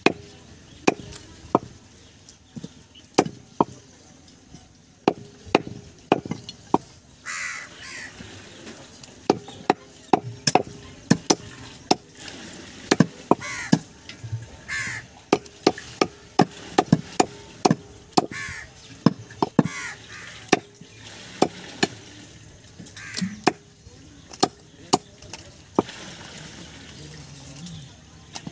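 Heavy cleaver chopping goat meat on a wooden stump block: repeated sharp chops at an uneven pace, sometimes in quick runs. Crows caw now and then.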